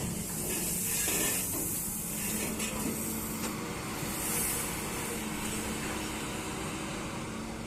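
Hitachi excavator's diesel engine running steadily, with a high hiss that swells about a second in and again about four seconds in.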